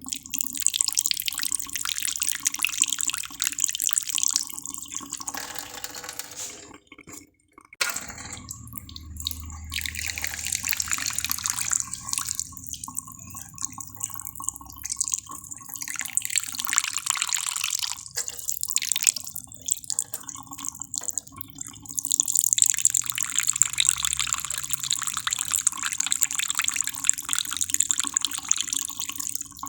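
Irregular hissing, splashing-like noise with no clear tone. It cuts out briefly about seven seconds in and gets louder over the last several seconds.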